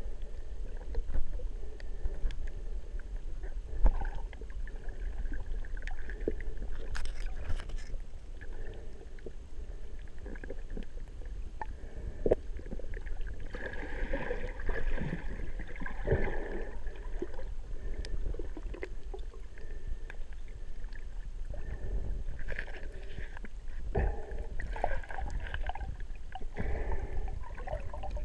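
Muffled underwater noise picked up by a camera in its waterproof housing: a steady low rumble of moving water with scattered clicks and irregular gurgles.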